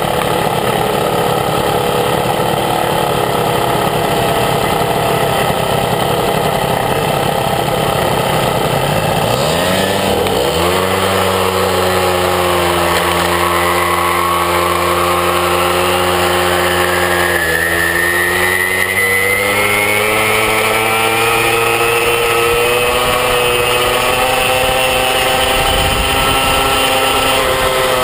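Motorbike engine running at low speed, then revving up about ten seconds in and holding a steady pitch, with a second rise in revs a little past the halfway point.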